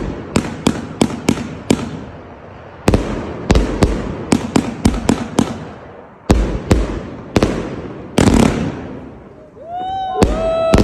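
Fireworks going off: a rapid series of sharp bangs and cracks in clusters, with short lulls between them.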